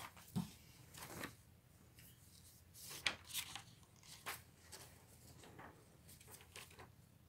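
Faint, scattered rustles and small clicks, a dozen or so short handling sounds, the sharpest about three seconds in.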